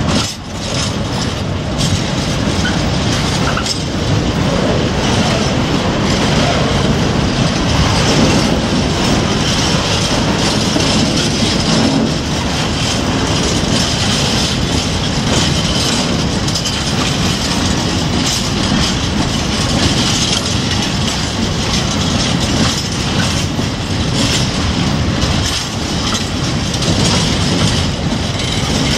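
Freight wagons of a long coal train rolling past close by: a steady rumble of steel wheels on rail with a clatter as they cross the rail joints.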